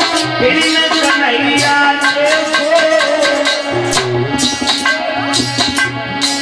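Male voice singing a Hindi devotional song, accompanied by harmonium and tabla with a steady beat.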